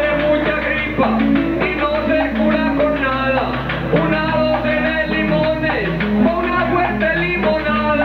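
Trova paisa: a man singing an improvised verse into a microphone over a steady guitar-driven Colombian folk accompaniment.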